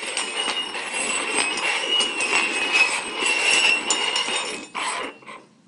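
Cups being slid and shuffled over a hard surface: a continuous scraping rattle with many small knocks, stopping suddenly about five seconds in.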